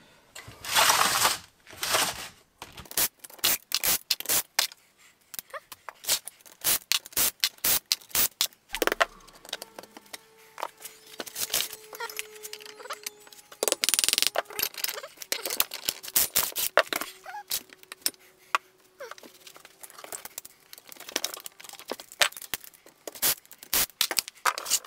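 Engine parts and hand tools being handled on a workbench: a run of sharp metallic clicks, knocks and clatters, with a brief rasping rustle about a second in and another near the middle.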